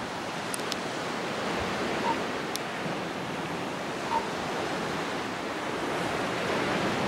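Steady rush of sea surf breaking on the shore, with two brief faint notes about two and four seconds in.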